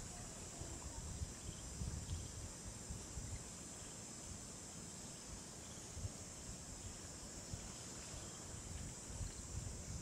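Steady high-pitched drone of insects in the field, over an irregular low rumble and rustle.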